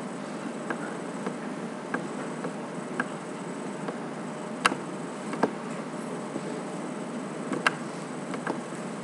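Computer mouse clicking, a handful of short sharp clicks at uneven intervals, two of them louder, about halfway and near the end. Under them runs a steady hiss of microphone noise.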